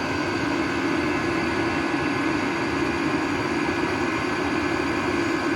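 Vevor diesel air heaters running on full power: a steady whir of the blower fans and burners, with a thin steady whine over it.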